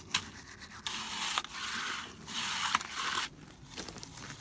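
A makeshift trowel scraping across freshly poured wet concrete in a footer form, in a few gritty strokes about a second long each.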